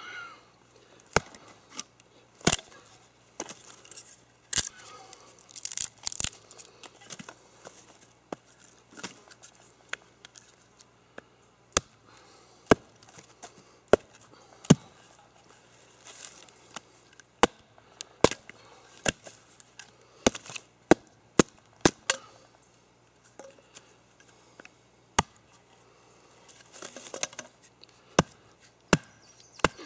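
Wooden baton striking the spine of a Terava Skrama heavy knife, driving the blade through a knotty piece of wood: a long run of sharp, irregularly spaced knocks, mostly about a second apart.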